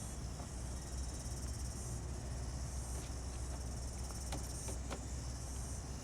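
A steady, high-pitched insect chorus over a low steady rumble, with a few faint clicks near the end.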